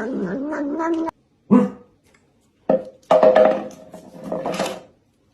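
A crying voice wavering and falling in pitch, cut off abruptly about a second in. Several short vocal outbursts follow, separated by silent gaps.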